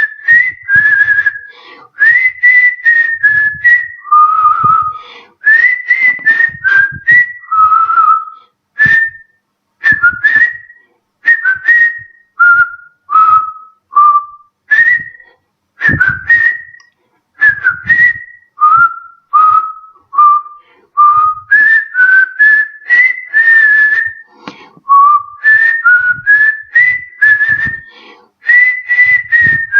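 A man whistling a melody with his lips. He whistles short, clear notes that often slide up or down, in quick phrases separated by brief pauses.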